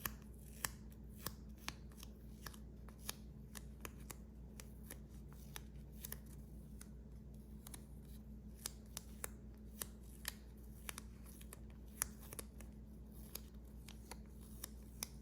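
Close-miked small sharp clicks and taps from hands handling puzzle materials, irregular, one to three a second, over a faint steady low hum.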